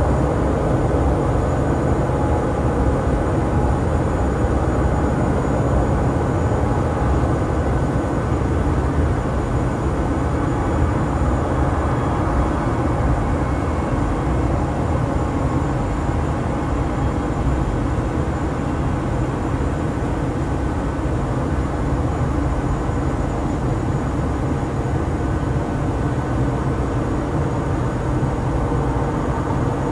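Steady airport apron noise: jet aircraft and ground equipment running, a continuous low rumble with a faint steady whine above it.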